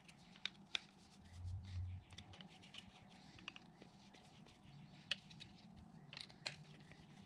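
Hand Phillips screwdriver driving small screws into a plastic phone-mount bracket: faint scratching with a few scattered light clicks, and a brief low rumble about a second and a half in.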